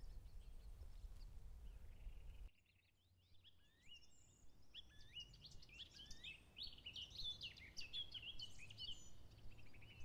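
Faint woodland birdsong: after a soft low rumble and a sudden drop to near silence, small songbirds sing a busy run of high chirps and thin gliding whistles.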